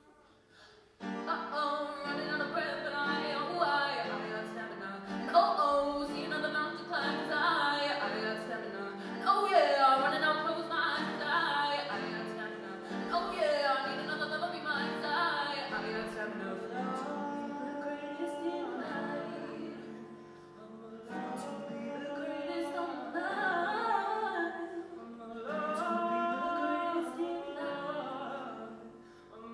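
A young woman singing into a microphone with live upright piano accompaniment, the singing and piano coming in about a second in after a brief hush.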